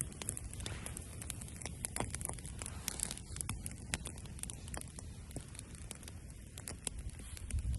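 Campfire crackling, with many irregular sharp pops and snaps, over a low rumble of wind on the microphone.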